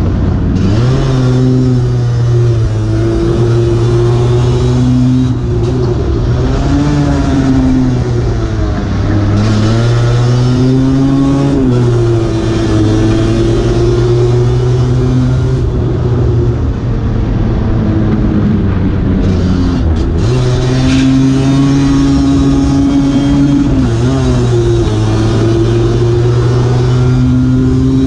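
Race-tuned Lambretta scooter's two-stroke engine, heard onboard at racing speed. Its note holds high, drops sharply a few times as the throttle shuts for a corner or a gear change, and climbs again.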